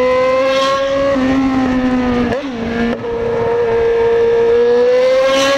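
Yamaha XJ6's inline-four engine through an aftermarket 4-into-1 straight-pipe exhaust, pulling under throttle while riding. The engine note rises and falls with quick dips at gear changes around two and a half and three seconds in, then climbs steadily toward the end.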